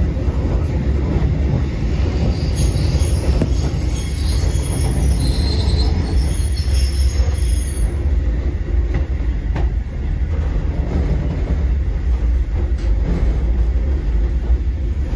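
Kotoden Kotohira Line electric train running with a steady low rumble of wheels on rail. High wheel squeal sounds from about two to eight seconds in.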